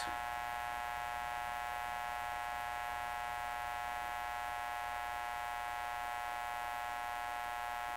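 Steady electrical hum, a stack of even high tones over a faint hiss.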